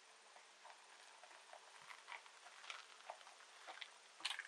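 Faint, scattered clicks and crunches as a Suzuki DR-Z dirt bike is walked down an aluminium loading ramp onto gravel, growing louder near the end.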